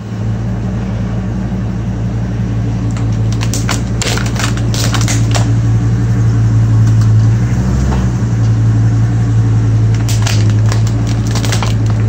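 Ford Excursion's engine idling steadily as the SUV creeps slowly forward, with crackling and crunching under its tyres in two bursts, about four seconds in and again near ten seconds in.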